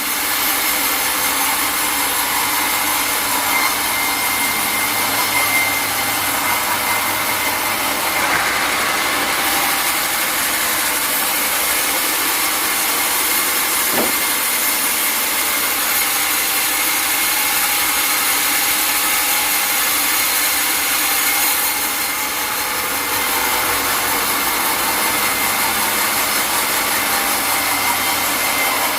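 Sawmill saw running and cutting through a log: a loud, steady sawing noise with a constant machine whine, and a single short click about halfway through.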